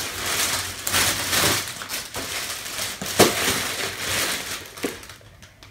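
Gift wrapping paper crinkling and rustling as a present is pulled open and unwrapped, with one sharper crackle about three seconds in; the rustling dies down near the end.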